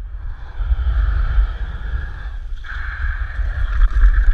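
Wind buffeting the microphone of a camera on a moving dog sled, over the steady hissing scrape of the sled's runners sliding across snow and glare ice.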